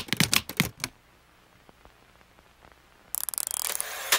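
Logo sound effect of mechanical clicking: a quick run of about six sharp clacks, then about three seconds in a fast rattling burst of clicks lasting a little over a second.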